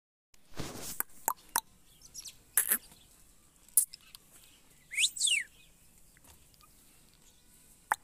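Indian ringneck parakeet making scattered short, sharp calls and clicks, with a quick whistle that slides up and down about five seconds in.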